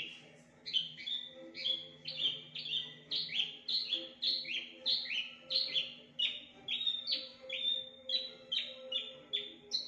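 Javan bush lark (branjangan) singing a long run of loud, short notes, each slurring downward, about two a second; the species is known for mimicking other birds in its song.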